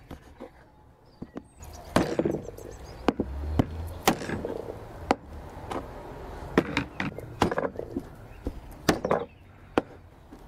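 Meat cleaver chopping a raw lamb's leg on a thick wooden cutting board: a dozen or so sharp chops at irregular spacing.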